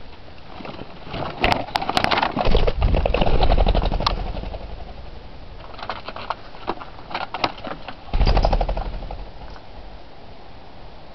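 Pheasants taking flight: rapid whirring wingbeats in two bursts, one about two and a half seconds in and one about eight seconds in, with a few sharp clicks before the first.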